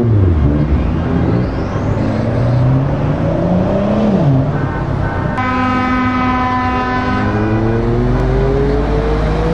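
Lorry diesel engines running as a queue of trucks pulls away slowly, the engine note rising and falling. A truck air horn blows a chord for about two seconds a little past halfway, and an engine revs up steadily near the end.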